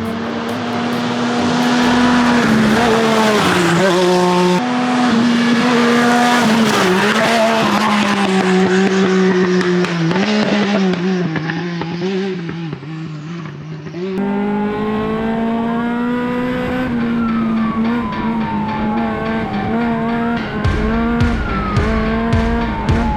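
Off-road race car engines running hard, their note rising and dipping with revs and gear changes. The sound changes abruptly twice, as from one car pass to another, and fainter engines glide in pitch near the end as cars pass.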